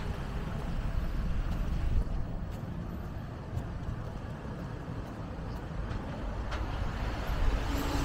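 Steady low rumble of passing street traffic, with no clear single vehicle standing out.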